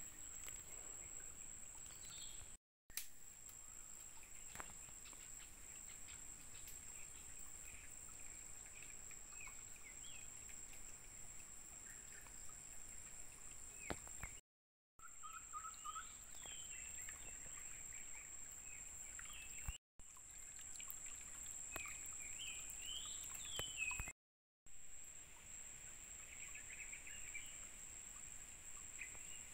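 Quiet outdoor ambience by a forest pool: a steady high-pitched insect drone with scattered short bird chirps, broken by a few brief silent gaps.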